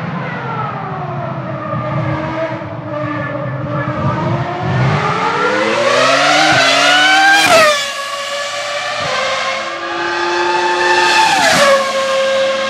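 Ferrari Formula 1 car's high-revving engine: the revs fall as it slows, then climb steeply under hard acceleration with quick upshifts. A second climb ends in a sharp upshift near the end.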